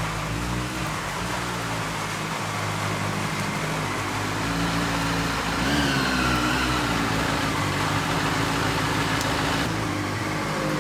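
Motorcycle engine running steadily under wind and road noise while riding, with a brief wavering higher tone about halfway through.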